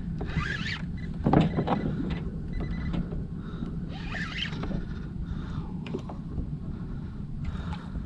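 A fishing reel being cranked in a few short spells as a hooked fish is brought in gently, its gears whirring, over a steady low rumble.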